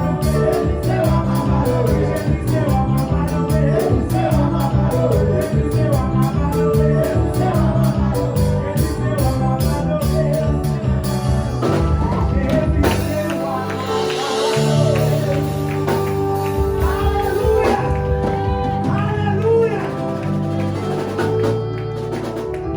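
Live praise-and-worship music: a band with a fast, steady beat and singing. About halfway through the drums stop and held chords and voices carry on a little more softly.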